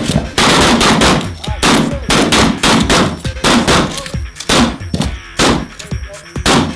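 A rapid, uneven string of 12-gauge shotgun shots, about two a second, from several shotguns firing on the same line.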